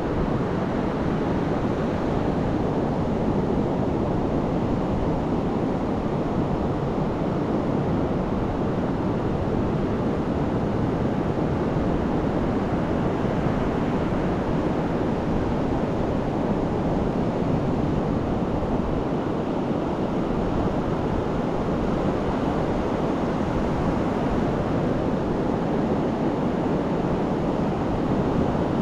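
Pacific Ocean surf breaking and washing up a sandy beach: a steady, even rushing noise with no single wave standing out.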